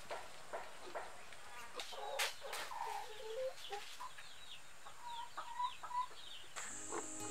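Chickens clucking in short, scattered calls. Background music comes in near the end.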